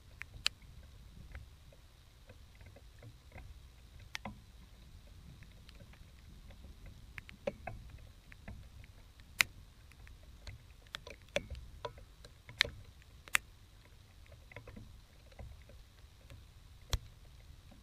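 Low rumble of storm wind on the microphone, with scattered sharp ticks and taps at irregular intervals, a dozen or so, the loudest about nine, twelve and thirteen seconds in and one near the end.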